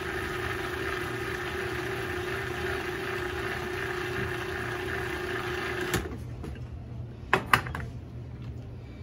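Countertop food processor running steadily as it blends a thick cream sauce, its motor giving a constant hum; it cuts off suddenly about six seconds in. About a second later come two quick plastic clacks as the lid is taken off the bowl.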